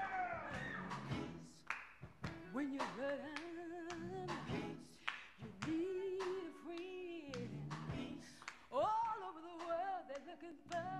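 A woman singing a gospel song solo, holding long notes with vibrato between short breaths, over steady rhythmic handclaps about twice a second.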